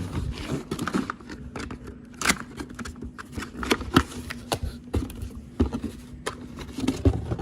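Box and packaging of an air compressor being opened by hand: irregular rustling and scraping with many sharp crackles and clicks. A faint steady hum runs underneath.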